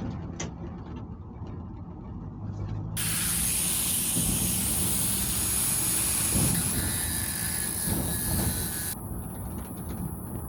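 An old Chevrolet C10 pickup driving on the road: a steady low rumble of engine and road noise. A loud, even hiss starts suddenly about three seconds in and stops just as suddenly about nine seconds in.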